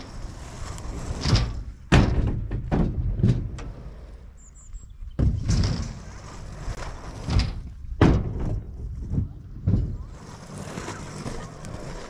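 Wind buffeting the microphone in low rumbling gusts, with several sudden thumps.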